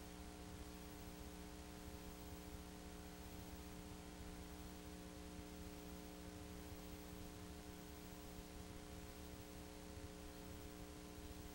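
Steady electrical hum with faint hiss and no other sound. This is a background hum under film footage that carries no sound of its own.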